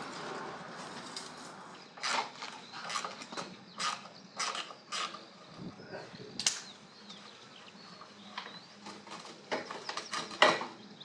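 Irregular sharp clicks and knocks of hand-tool work on metal motorcycle parts, about a dozen separate strikes.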